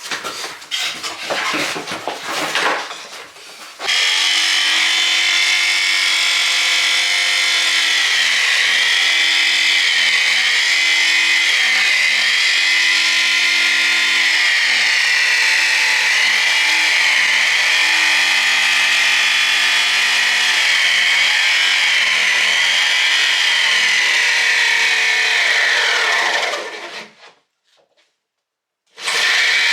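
Jigsaw cutting through the door to make the opening for the door lite, with a motor whine whose pitch wavers as the blade loads and eases. It runs steadily for about twenty seconds, winds down with a falling pitch, and starts up again near the end.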